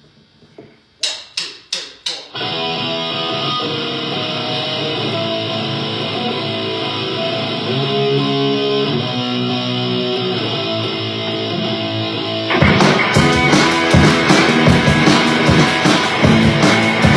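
A rock band starting a song: four quick evenly spaced clicks as a count-in, then a distorted electric guitar playing a riff alone. About ten seconds later the full band comes in with drums and bass, and the music gets louder.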